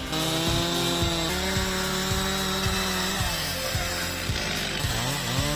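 A chainsaw running as it cuts wood, mixed with background music that has a steady beat.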